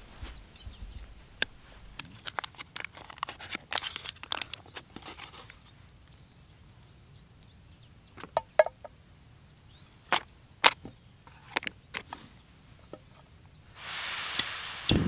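A tiny folding pack-away gas camping stove being unfolded, with light metallic clicks and rustling, followed a few seconds later by a handful of sharp taps and knocks. Near the end, gas starts hissing from the burner, two sharp clicks follow, and the flame catches with a low steady rush.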